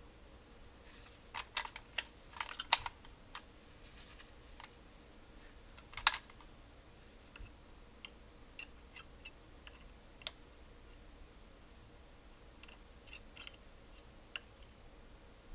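Screwdriver tip clicking and scraping against the plastic battery compartment and metal spring contacts of a Coleman air-mattress pump. A flurry of sharp clicks comes between about one and a half and three and a half seconds in, another loud click about six seconds in, then scattered lighter ticks.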